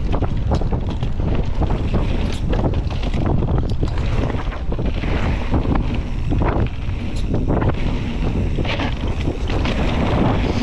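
Wind buffeting the camera's microphone on a mountain bike riding downhill over a dirt and gravel trail, a steady low rumble. Through it come many sharp clicks and rattles from the tyres over loose stones and from the bike's parts shaking.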